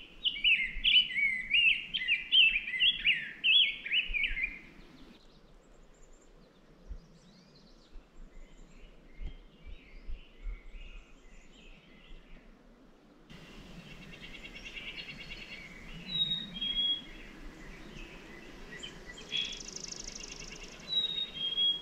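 Songbirds singing: a loud, rapid warbling song over the first few seconds, then fainter songs and calls, and scattered short clear whistles in the second half.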